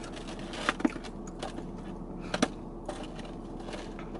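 A few sharp clicks and light rustling from things being handled inside a car, with one louder click about two and a half seconds in, over a steady hum.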